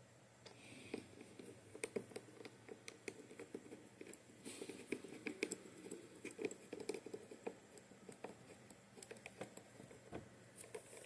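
Faint, irregular small clicks, taps and rustling: hands handling parts and tools while working on an opened iMac.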